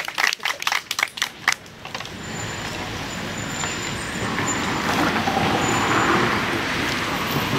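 Hand clapping for the first second and a half, then the steady noise of passing road traffic, growing louder around six seconds in.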